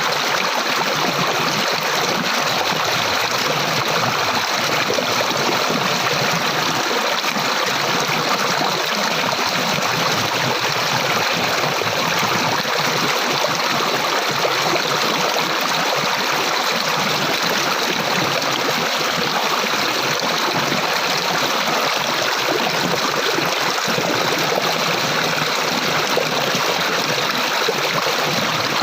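Flowing water: a stream running steadily over rocks, a constant even rush with some trickling.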